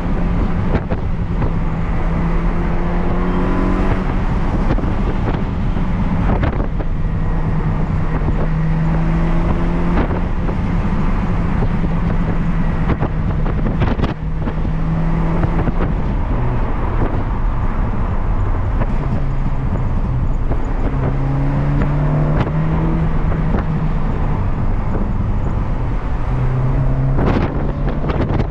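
Rover K-series engine from a Lotus Elise, swapped into a Rover Metro, running under load and heard from inside the cabin over road and wind noise. Its pitch steps up and down several times, with a brief dip about halfway through.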